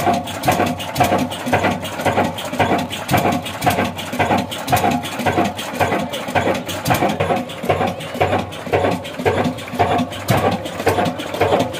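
Old horizontal stationary engine with heavy flywheels running steadily, its beat repeating evenly about twice a second.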